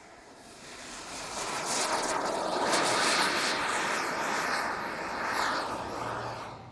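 Radio-controlled model jet's turbine engine passing by with a high whine, swelling over the first couple of seconds, fading near the end, then cut off abruptly.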